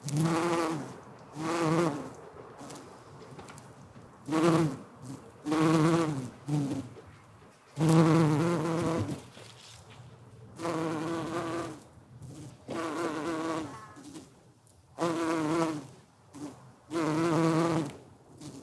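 A bee buzzing around lavender flowers, coming and going in about a dozen short spells of a second or two each, with brief lulls between as it moves from flower to flower.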